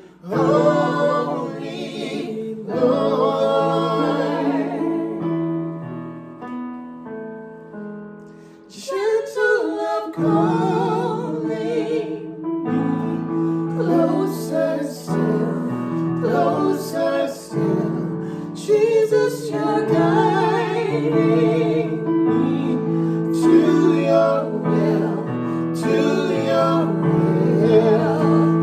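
Slow gospel worship music: a sung voice with vibrato over keyboard, softening about halfway and then swelling back in fuller.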